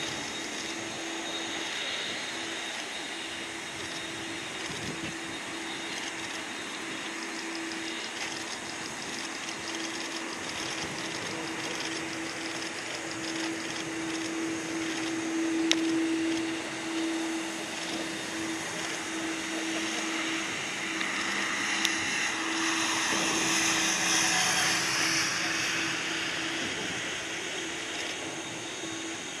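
Turkish Airlines Airbus A330 jet engines running as the airliner taxis and lines up on the runway: a steady whining hum with a constant low tone, swelling louder and hissier for a few seconds about three quarters of the way through.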